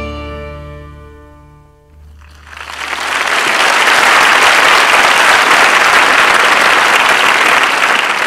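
The final chord of Greek plucked-string music rings and fades away over the first two seconds. An audience then breaks into applause, which swells and holds steady.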